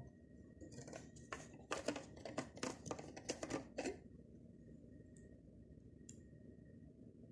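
Scratchy rustling and scraping, about a dozen irregular strokes over roughly three seconds, then two faint clicks, over a low steady hum: handling noise close to the phone's microphone.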